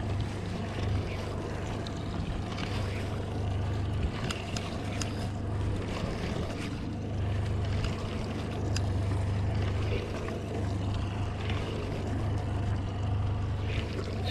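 Boat engine running steadily with a low hum, under a constant wash of water and wind noise, with a few faint ticks here and there.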